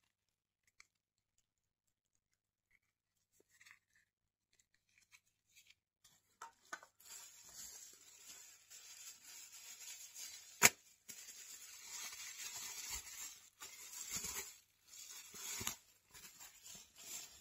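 Plastic packaging crinkling and tearing as a figure is unwrapped by hand, with one sharp crack about ten seconds in. The first several seconds are nearly silent, with only a few faint clicks.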